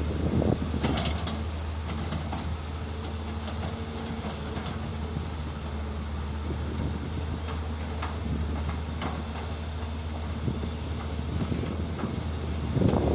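Excavator's diesel engine running with a steady drone, with a few light knocks.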